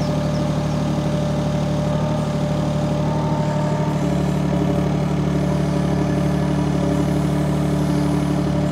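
UHI UME12 mini excavator's engine running steadily while the boom lowers a single-tine ripper onto a tree stump, its note shifting slightly about four seconds in.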